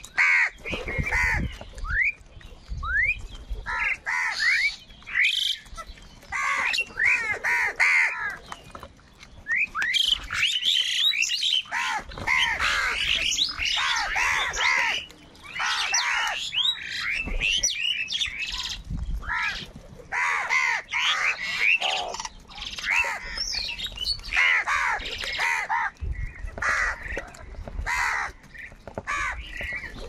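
A flock of house crows cawing, many harsh calls overlapping almost without pause.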